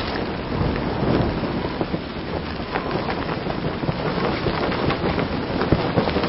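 Stormy weather sound effect: a steady, loud rush of rain and wind, with scattered small ticks in it.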